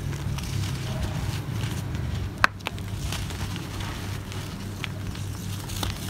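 Lumps of dry clay soil crushed and crumbled in bare hands, crunching and crackling as grit and dust trickle out. One sharp snap about two and a half seconds in.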